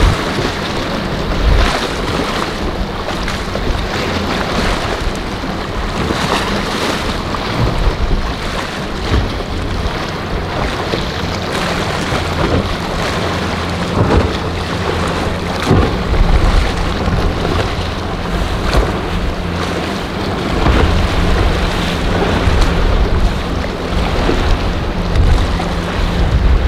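Wind buffeting the microphone and waves washing, under the steady hum of a center-console boat's twin outboard engines running through choppy inlet water.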